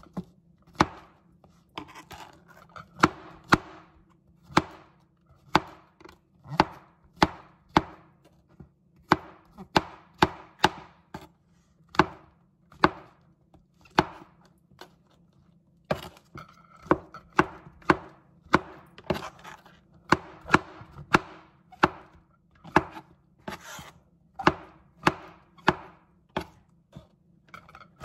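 Kitchen knife chopping vegetables on a cutting board: sharp knocks of the blade striking the board, about two a second and unevenly spaced, with short quicker runs.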